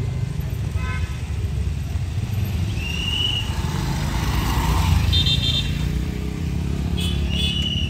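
Motorcycle and scooter engines running close by in roadside traffic, a rumble that swells as a motorcycle pulls past, with short vehicle-horn toots about three seconds in, around five seconds and near the end.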